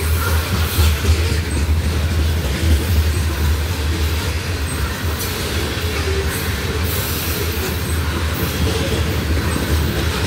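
Loaded covered hopper cars of a grain train rolling past, a steady loud rumble of steel wheels on the rails.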